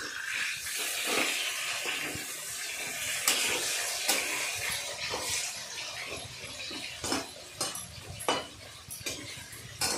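Chicken pieces sizzling as they fry in hot mustard oil in a kadhai, the hiss strongest in the first few seconds. From about three seconds in come scattered sharp clinks of a spatula against the metal pan as the pieces are turned over.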